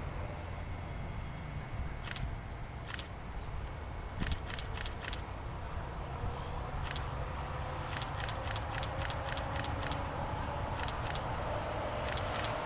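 Camera shutter firing, single frames and quick bursts of several shots, over a steady low rumble.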